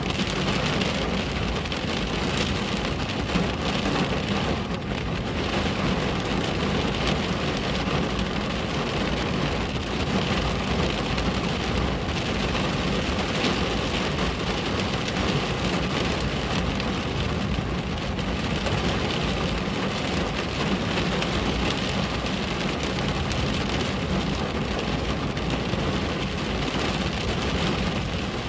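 Steady rain falling on a window, an even, unbroken wash of drops with no single event standing out.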